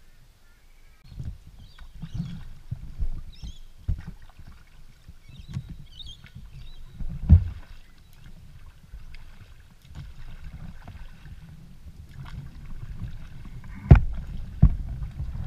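A wooden paddle working a bamboo-framed canoe with water splashing at each stroke. A few sharp knocks stand out, the loudest about seven seconds in and near the end.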